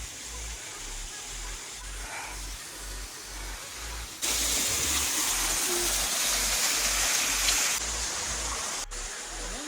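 Waterfall water rushing in a steady, even noise, much louder for a few seconds from about four seconds in, then dropping back.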